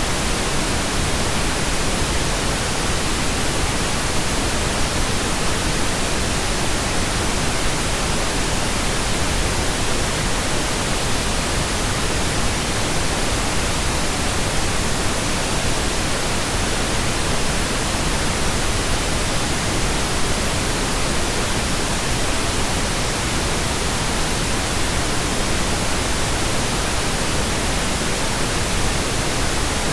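Steady pink noise, computer-generated: an even hiss across all pitches, unchanging throughout.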